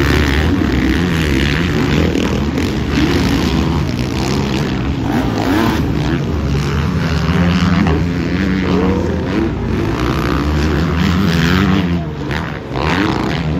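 Several motocross bikes racing on a dirt track, their engines loud and overlapping, each pitch rising and falling as the riders rev, shift and pass by.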